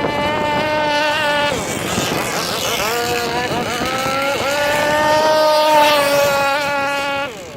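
Two-stroke petrol engine of a radio-controlled boat, fitted with a tuned can exhaust pipe, running hard with a high whine; its pitch dips and climbs back a couple of times as the throttle is eased and reopened, then falls away near the end.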